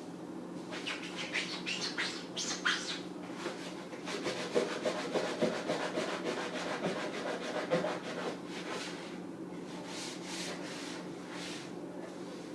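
Sponge scrubbing the inside of a refrigerator in runs of quick back-and-forth rubbing strokes, over a steady low hum.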